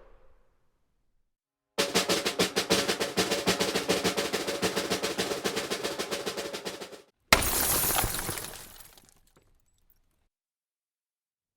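A drum roll of fast, even snare strokes lasting about five seconds, ending in a sudden cymbal crash that rings out and fades over a couple of seconds.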